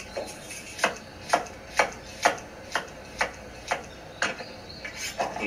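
Kitchen knife chopping food on a cutting board: a steady run of sharp, even strokes, about two a second.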